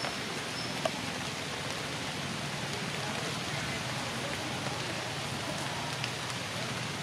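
A steady, even hiss of outdoor noise, with a few faint short high chirps near the start and a small click about a second in.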